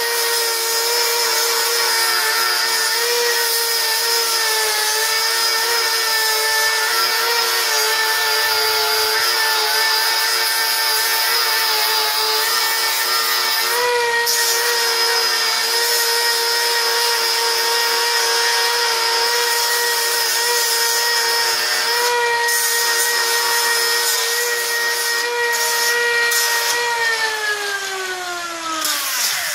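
Electric grinder running with a steady high whine over a gritty hiss, grinding the mill scale off a quarter-inch steel plate, then winding down near the end as it is switched off.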